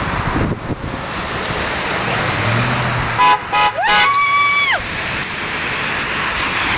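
Car horn honking over steady road traffic: two quick toots about three seconds in, then one longer blast lasting nearly a second.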